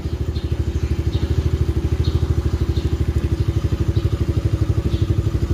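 Engine of a Viar Razor 100SP quad ATV idling steadily, with an even, rapid beat and no revving.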